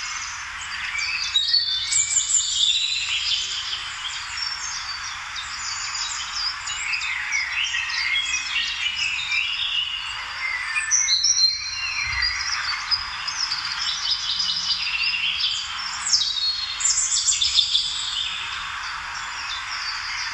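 Many birds chirping and singing at once, a dense, continuous chorus of short overlapping calls.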